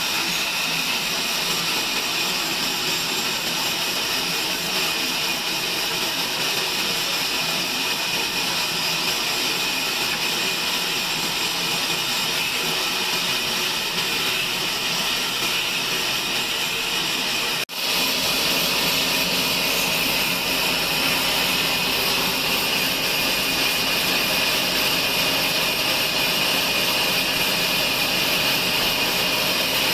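Sawmill band saw machinery running steadily, a continuous high, rushing machine noise that breaks off for an instant a little past the middle.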